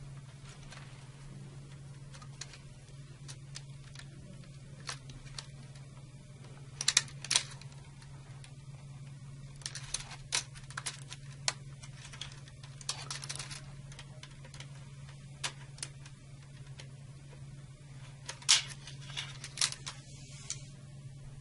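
Scattered small clicks and rattles of plastic wire connectors being unlatched with needle-nose pliers and pulled from a circuit breaker's secondary mounting bracket, with the sharpest clicks about seven seconds in and again near the end. A steady low hum runs underneath.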